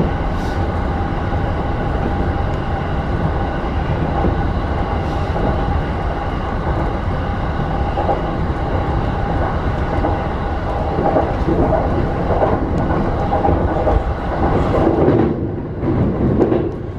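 Keihin-Tohoku Line electric train running at speed, heard from inside the front car: a steady rolling rumble with a steady whine on top. About fifteen seconds in the sound changes as the train runs onto a steel truss bridge.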